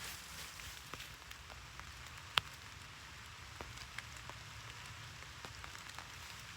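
Steady rain hissing down, with scattered sharp raindrop taps close by, the loudest about two and a half seconds in.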